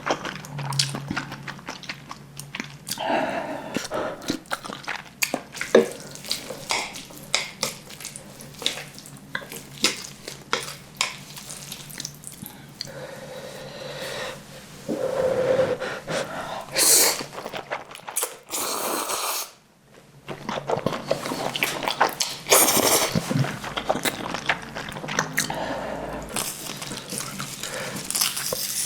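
Close-miked eating sounds of Jjapaghetti black bean noodles and spicy kimchi being eaten: wet chewing and mouth smacks with many short clicks, and a few longer wet, noisy stretches. The sound breaks off almost to silence for a moment about two-thirds of the way through.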